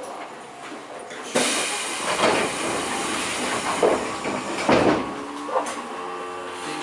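Aboard a Tobu 10050-series electric train: a sudden burst of air hiss about a second in, with a couple of sharp knocks. Near the end a steady tone sets in and steps up in pitch.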